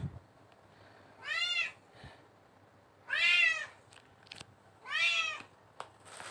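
A cat meowing three times, each meow rising and then falling in pitch, the middle one the longest and loudest. A short low bump comes right at the start.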